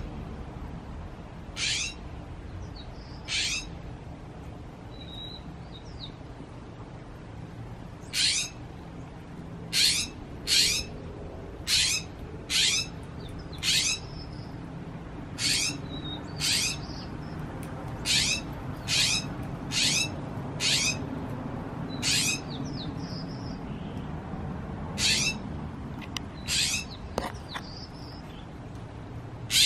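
Northern mockingbird giving short, harsh chack calls, about eighteen of them, mostly about a second apart with a few longer pauses.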